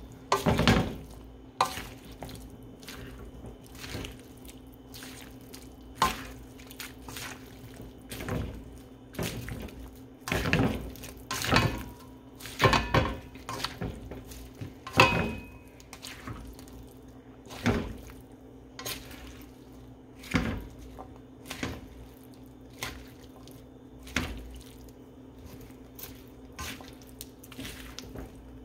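A spatula stirring and tossing vegetables in a stir-fry pan: irregular scrapes and knocks against the pan, a few every couple of seconds, over a steady low hum.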